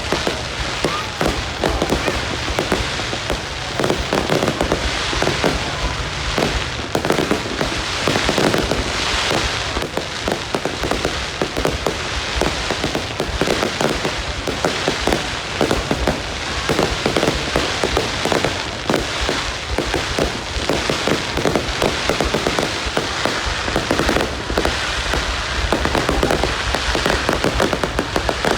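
Fireworks display in full barrage: a dense, continuous crackle of many bursts each second, with no pause between them.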